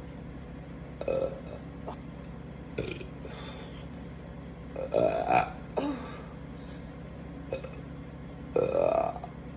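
A young woman burping repeatedly: short burps about one and three seconds in, then a long, loud burp about five seconds in and another near the end. The long burps rise in pitch.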